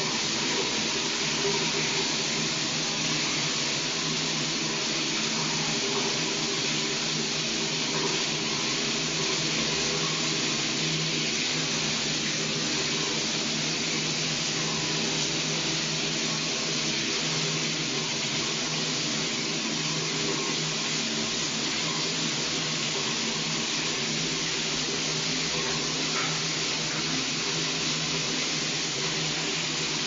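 A shower running steadily, water spraying and splashing in a continuous even hiss.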